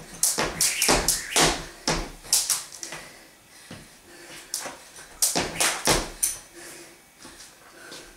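Jump rope skipping on a wooden floor: the thin cable rope slapping the floor and sneakers landing, in short runs of sharp slaps with quieter pauses between.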